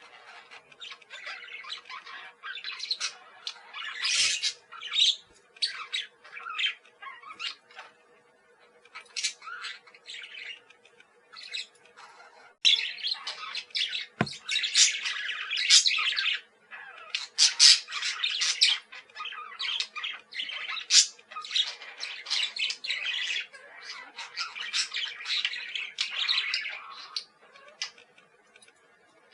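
Parakeets chattering, with rapid high chirps and squawks overlapping almost without pause, busier in the second half. Two brief thumps break in, one a few seconds in and one about halfway.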